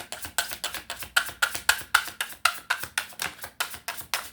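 Tarot cards being shuffled by hand, a fast even run of crisp slaps and clicks about four a second.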